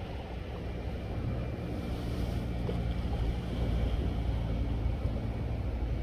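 Wind buffeting the microphone: a low, steady rumble that grows slightly louder, with a faint hum under it.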